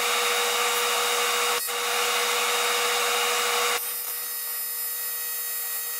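AC TIG welding arc on 7075 aluminum, buzzing steadily with a hiss. It breaks off for an instant about a second and a half in and goes straight on. Near four seconds in it turns a little quieter, with a higher whine.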